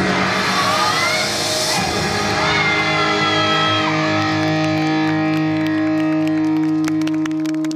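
Rock-style yosakoi dance music with electric guitar coming to its end, settling about three seconds in onto one long held final chord. Scattered hand claps begin near the end as the chord rings on.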